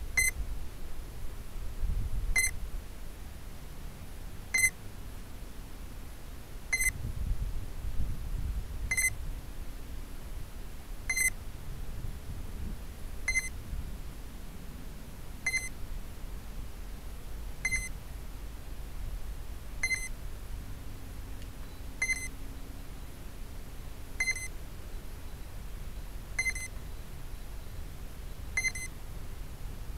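Short electronic beeps from the electronics of a landed tricopter, about one every two seconds at an even rate, with wind rumbling on the microphone.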